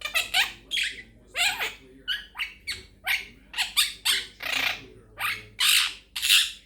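Quaker parrot chattering: a quick string of short squawks and chirps, about two or three a second, some sweeping in pitch.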